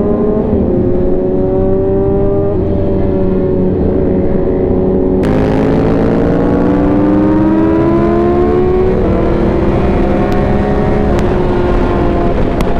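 2020 Yamaha R6's inline-four engine accelerating hard through the gears at highway speed: its pitch climbs and then drops at each of several upshifts, over steady wind rush, with a few sharp clicks near the end.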